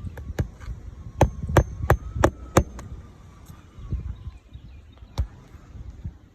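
Hammer blows on an asphalt shingle roof during a shingle repair: a quick run of five sharp strikes about three a second, then a few scattered knocks.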